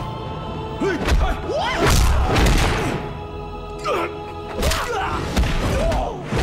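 Fight-scene film soundtrack: music under a run of heavy punch and kick impacts, the biggest about two seconds in, with brief shouts and grunts from the fighters.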